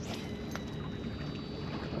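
Shimano Exsence DC baitcasting reel paying out line during a cast, its spool giving a thin, steady high whine from the DC braking system, starting about half a second in. Under it, a steady low rumble of wind and sea water.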